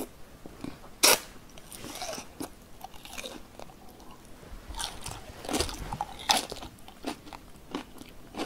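Close-miked chewing of battered, sauce-coated Korean sweet and sour pork (tangsuyuk): irregular crunches of the fried coating, the sharpest about a second in.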